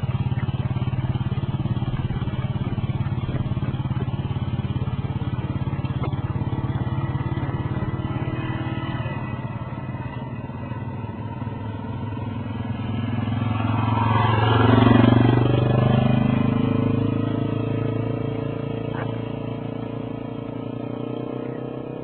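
Motorcycle engine running steadily. About two-thirds of the way through, a motorcycle passes close by, growing louder and then fading away.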